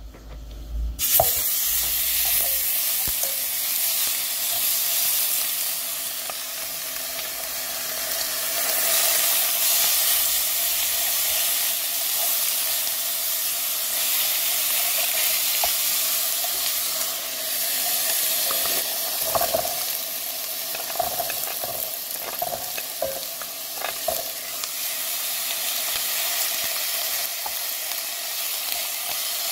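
Thick slices of pork neck and pork belly sizzling in a hot pan, starting suddenly about a second in as the meat goes on. The sizzle swells and eases as the pan's automatic heat control cycles, with a few light clicks of the tongs.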